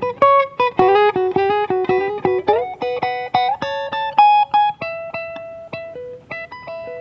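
Solo guitar playing a slow, improvised melody of plucked notes that ring on. There is a slide up in pitch about two and a half seconds in, and the notes come slower and are held longer after that.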